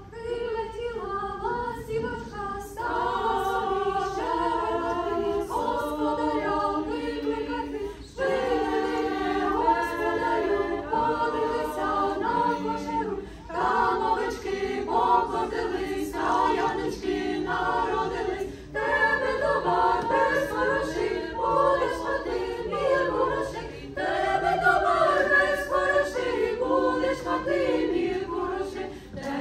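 Church choir singing a Ukrainian Christmas carol (koliadka) a cappella, in phrases a few seconds long with brief pauses between.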